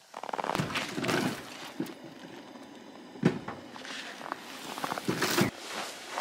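Footsteps crunching on packed snow, a few uneven steps.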